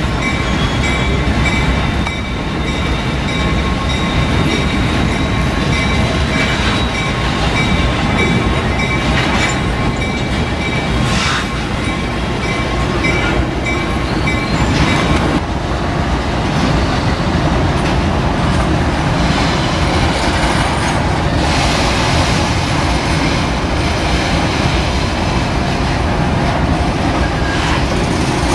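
Diesel locomotive and a string of tank cars rolling slowly through a rail yard, with a steady low rumble and wheel clatter. A steady high-pitched squeal of wheel flanges on the rails runs until about halfway through, then stops, and there are a few brief clanks.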